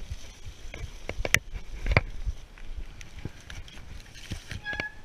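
Mountain bike clattering over a rough, wet trail: a string of sharp knocks and clacks as the tyres hit roots and rocks, the loudest about one and a half and two seconds in, over steady tyre and riding noise. Two short squeaks come near the end.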